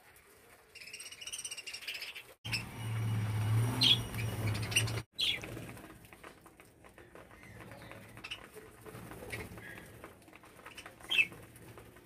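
A flock of budgerigars chirping and warbling, with several short, sharp chirps. A stretch of low rumbling noise runs through the middle and is the loudest part.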